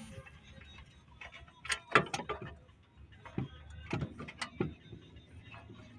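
Brake parts being handled: a series of sharp metallic clicks and knocks, the loudest about two seconds in.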